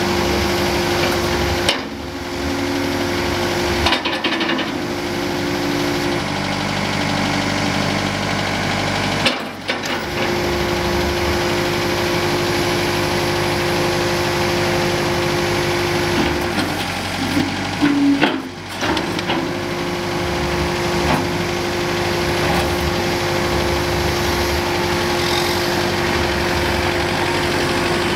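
Kubota M8200's four-cylinder diesel engine running steadily while the front loader's bucket is lowered and curled and the tractor moves off, with a steady tone that drops out and returns a couple of times.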